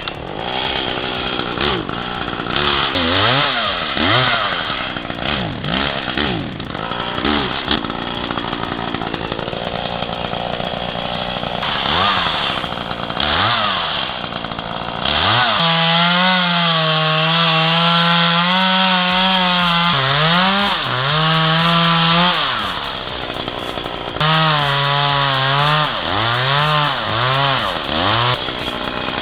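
Chainsaw revving up and down repeatedly, then held at full throttle in a long cut from about halfway, dropping off briefly twice near the end.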